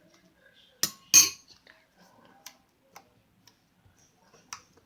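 Two sharp clacks of hard objects knocking together, about a third of a second apart, followed by a few faint scattered ticks.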